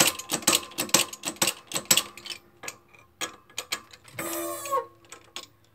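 Hand pump of a 12-ton hydraulic shop press being worked, a quick run of sharp clicks about five a second, as it presses a bearing off a Shopsmith Mark V drive sleeve. The clicks thin out after about two seconds, and a short falling squeal comes about four seconds in.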